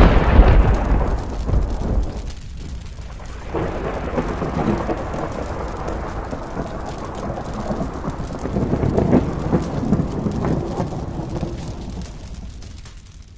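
Thunder: a loud clap at the start dying away, then a long rolling rumble that swells again and fades out near the end, over a steady rain-like hiss.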